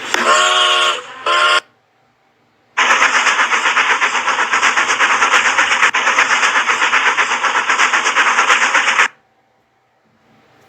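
A steam train whistle blows briefly. After a short pause comes a loud, rapid, even rattle of sharp repeated bursts lasting about six seconds, which stops suddenly.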